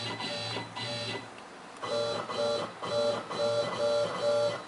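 Stepper motors of a Sieg KX1 CNC mill whining through a series of short jog moves as the head is stepped across the work. There are three brief pulses, a short pause, then about six louder ones at an even pace.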